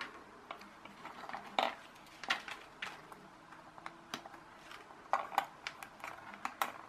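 Plato side cutters snipping off component leads on a small circuit board, with the board and cutters being handled. It is a series of sharp, separate metallic clicks a second or so apart.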